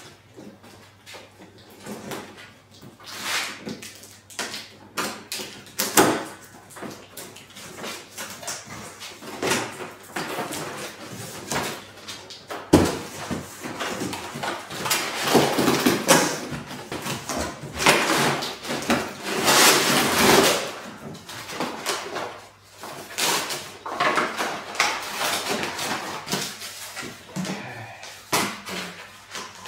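Cardboard box and packaging being handled during unboxing: a string of knocks and scrapes, with longer bouts of rustling in the middle as parts are pulled out.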